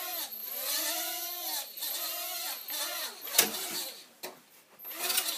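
Small toy quadcopter's motors and propellers whining, the pitch swelling up and falling back several times as the throttle is worked. There is a sharp knock about three and a half seconds in.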